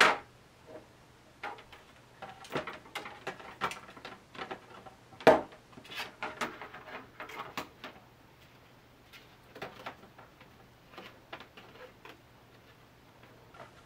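Handling noise: irregular clicks, taps and light rustles as a power-switch cable is worked through a vent hole in a 3D-printed plastic case lid, with a sharper knock about five seconds in.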